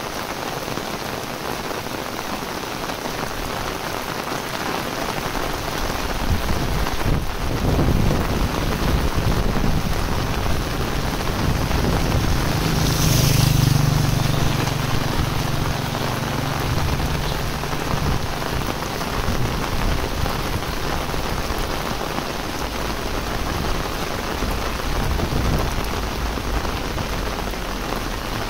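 Heavy rain falls steadily on a road and vegetation. About halfway through, a motorcycle passes close by, its engine hum and tyre hiss on the wet road rising and then fading over several seconds.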